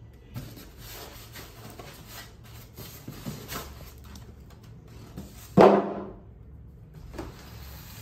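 Cardboard box and expanded-polystyrene packing insert being handled, with rubbing and scraping as the foam top is lifted out of the box. About two-thirds of the way in comes a single loud thump with a brief ring, and a softer knock follows a little later.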